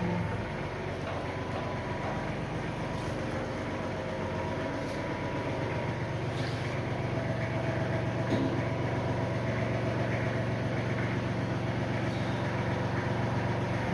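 Pressure washer running steadily, its motor humming under the hiss of the spray as it cleans degreased grime off a car frame.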